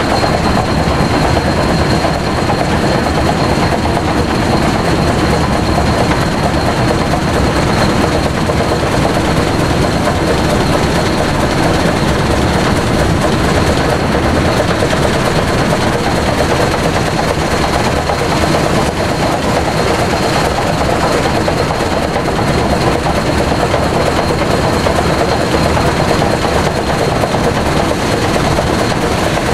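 Steady wind noise rushing over a camera's built-in microphone from a moving car, with the running sound of Union Pacific 844, a 4-8-4 Northern-type steam locomotive, travelling at speed alongside.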